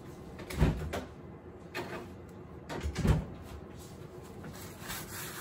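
Refrigerator door being opened and shut: two loud, dull knocks about two and a half seconds apart, with a lighter knock between them.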